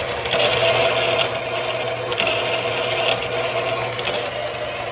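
A power tool running steadily with a whirring hum and a light rattle.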